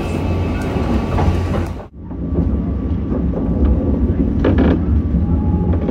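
Train running on the rails: a steady low rumble with a few clicks. The sound drops out for a moment about two seconds in and comes back duller.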